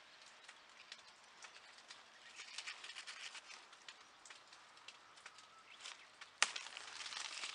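Rain pattering faintly on a plastic greenhouse roof as a run of small irregular ticks. Near the end a sharp snap, a grapevine shoot broken off by hand, followed by leaves rustling.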